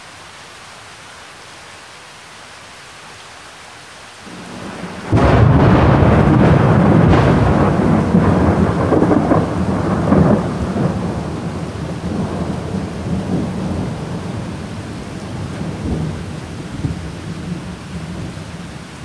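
Steady rain, then a thunder boom: a low rumble builds about four seconds in and breaks into a sudden loud boom a second later. The rumble rolls on and slowly dies away while the rain keeps falling.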